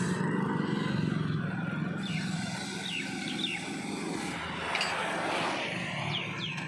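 Steady low engine hum, with short high bird chirps now and then, a few around the middle and again near the end.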